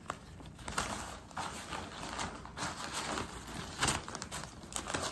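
Oxford-cloth travel organizer bags being handled and unfolded: irregular fabric rustling and crinkling with a few soft taps, the sharpest about four seconds in.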